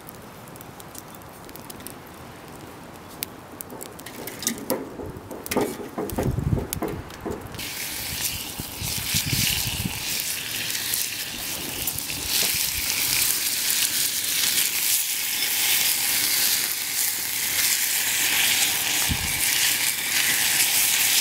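Bacon strips sizzling in a cast iron skillet over a wood fire: a loud, steady hiss that sets in abruptly about a third of the way through and keeps on. Before it, scattered knocks and handling noise with a few low gusts of wind on the microphone.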